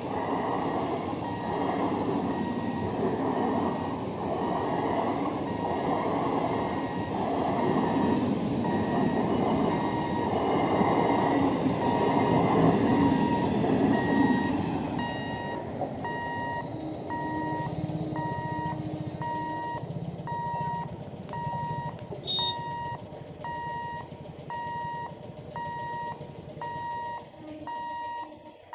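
An EMU electric local train rolls through the level crossing with a steady rhythmic clatter of wheels on the rails until its last coach clears, about halfway through. Then a level-crossing warning beeper keeps sounding, about one beep a second.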